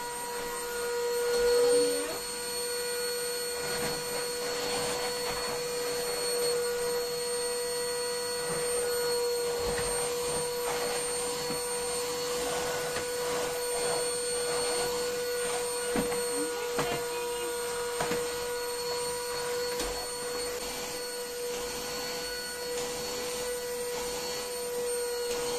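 Canister vacuum cleaner running steadily, its motor giving a constant whine over a rushing hiss of suction. The floor head is being pushed over a shag rug, with a few brief knocks and scrapes now and then.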